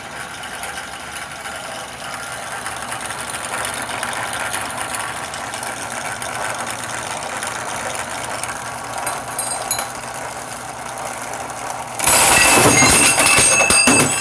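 Bench drill press running with a steady motor hum. About twelve seconds in, the cutter bites into the wheel spacer and the sound jumps to a much louder, harsh metal-cutting noise as the spacer's centre bore is enlarged to clear the hub.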